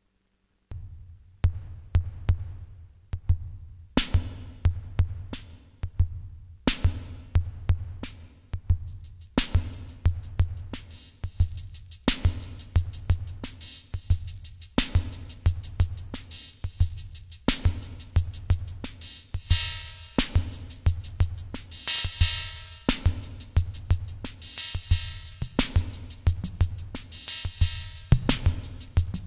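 Sound Master Stix ST-305 analog drum machine playing a programmed rhythm: a steady thudding analog bass drum with a bright accent hit about every two and a half seconds, starting about a second in. Hi-hat and cymbal sounds come up in level and fill in more densely as the channel volume faders are adjusted.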